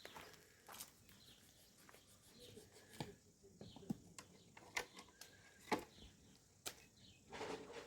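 Faint, scattered clicks and knocks at irregular intervals, with a short rustling patch near the end and faint bird chirps in the background.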